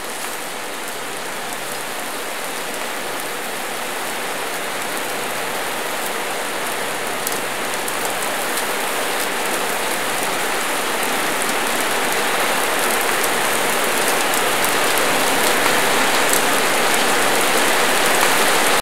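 Meat sizzling on a flaming grill grate: a dense, crackling hiss that grows steadily louder, then cuts off suddenly at the end.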